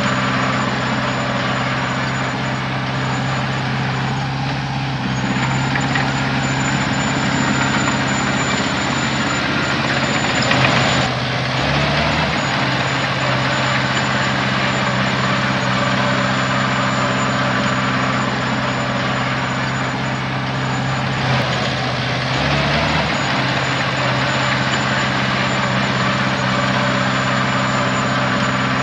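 Heavy diesel engine running steadily, with a short hiss about ten seconds in.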